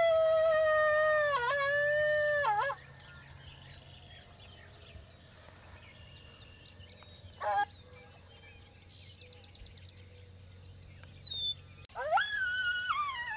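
Coyote howls: a long, drawn-out howl that breaks off about three seconds in, a short falling yip near the middle, and another wavering howl starting near the end. Small birds chirp faintly in between.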